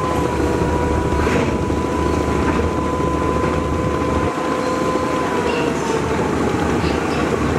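Steady rumble of the Bangladeshi river passenger launch Karnaphuli-13's engines as it manoeuvres, with a thin steady whine over it that sags slightly in pitch about five seconds in. The deepest part of the rumble drops away a little after four seconds in.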